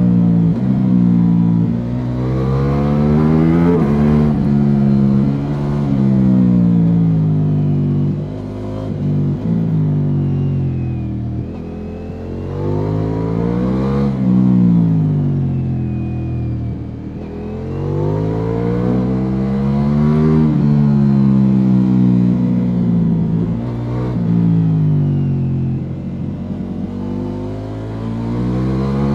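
Ducati Multistrada V4 S's V4 engine through an Akrapovic slip-on exhaust, ridden hard in sport mode. The pitch climbs under acceleration, then falls off as the bike slows for the next corner, over and over.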